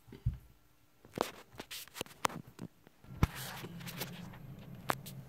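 Scattered light clicks and taps of small plastic parts being handled: a plastic squeeze dropper knocking against a plastic candy-kit tray. A faint steady low hum comes in about three seconds in.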